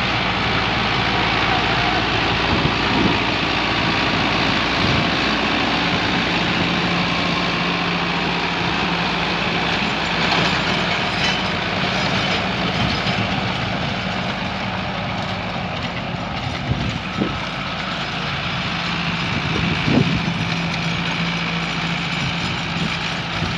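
Sonalika tractor's diesel engine running steadily under load, driving a rear rotavator through dry soil.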